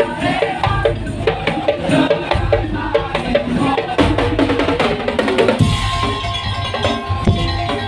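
Madurese tong-tong ensemble playing: wooden slit drums and drums keep a busy beat under a melody of pitched instruments. A held note comes in about six seconds in.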